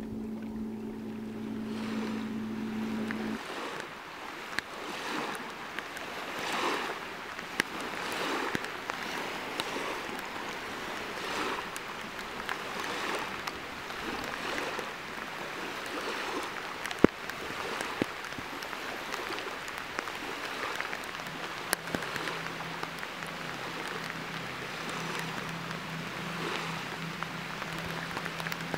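Small lake waves lapping on a sandy shore with wind gusting, the wash swelling and easing about once a second, with a few sharp ticks. A low steady hum sounds in the first few seconds and comes back about two-thirds of the way in.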